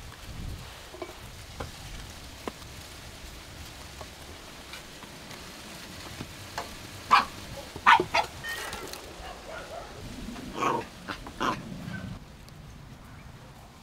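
A small dog giving several short barks, a few about halfway through and a couple more a few seconds later. Under them are quiet knife cuts on firm porcini mushrooms.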